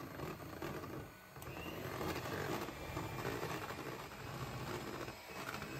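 Electric hand mixer running steadily, its beaters whisking mayonnaise in a bowl, with a brief dip about a second in.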